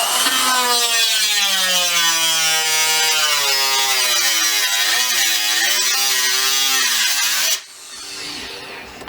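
Handheld power tool running under load as it cuts the car's fender, its motor pitch dipping and wavering with the load. It stops suddenly about seven and a half seconds in.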